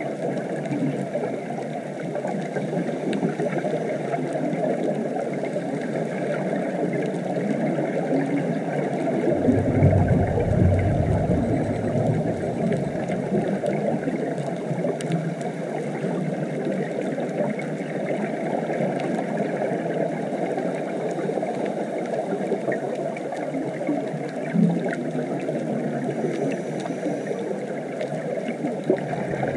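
Muffled underwater reef ambience heard through a GoPro's waterproof housing: a steady wash of water noise with a few faint clicks. A low rumble swells for about three seconds some nine seconds in.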